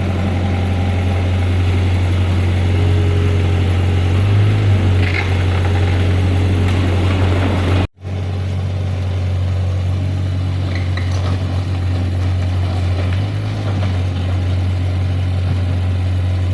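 Excavator's diesel engine running steadily, a low even drone. The sound breaks off for an instant about halfway through, then carries on unchanged.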